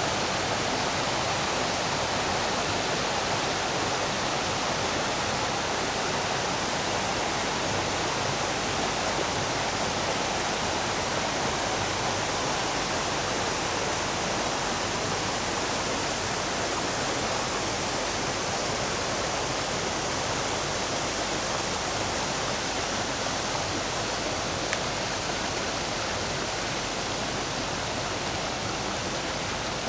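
A seasonal stream rushing over rocks: a steady, unbroken rush of flowing water.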